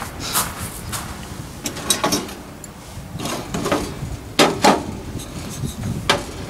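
Metal camping gear being handled: light clinks and knocks as a brass alcohol stove, steel rods and a small aluminium fuel bottle are lifted out of a stainless-steel windscreen stand and set down on a metal table. Two sharp knocks come close together about halfway through, and another near the end as the bottle is put down.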